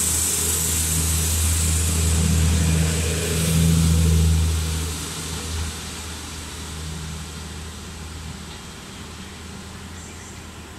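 JR Central HC85 series hybrid diesel railcar departing: its engine-generator gives a steady low drone with a hiss above it, loud for about the first four seconds as the cars pass, then fading as the train draws away.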